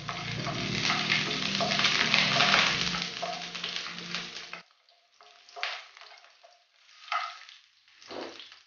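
Green chillies, ginger and curry leaves sizzling in hot coconut oil in a nonstick kadai while being stirred with a wooden spatula. The sizzle cuts off suddenly about halfway through, leaving three short scrapes of the spatula on the pan.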